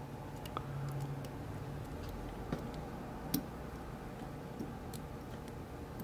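A few faint ticks of a steel hook pick working the pin tumblers of a brass padlock under heavy turning pressure, over a low steady hum.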